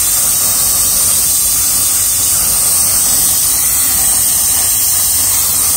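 Gas-and-air brazing torch burning with a steady hiss, heating a copper capillary-to-filter-drier joint to red heat as silver brazing rod is fed in.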